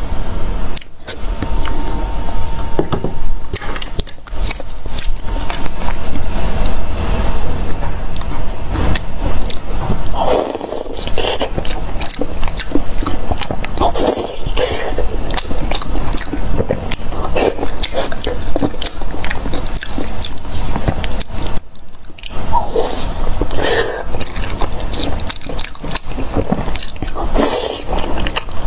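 Close-miked eating: biting and chewing mixed with scraping sounds, a dense run of short clicks and crackles.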